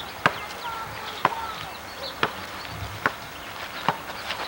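Basketball dribbled on a paved driveway: five sharp bounces, about one a second.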